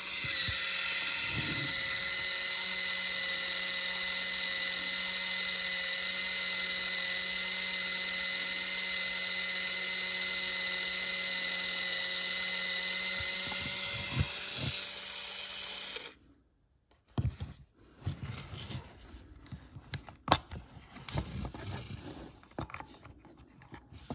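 The built-in electric motor of a Canon Sure Shot 80 Tele Date 35mm compact camera rewinding the film: a steady, drill-like whine for about 14 seconds that drops in level, runs on quieter for a couple of seconds, then cuts off suddenly. A few clicks and handling sounds follow as the camera back is opened.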